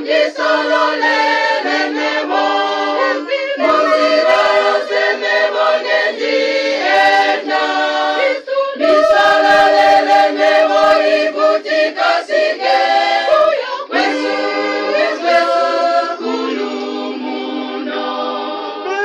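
A church choir singing a cappella in harmony: held chords in several voice parts, phrased in lines a few seconds long with short breaks between them.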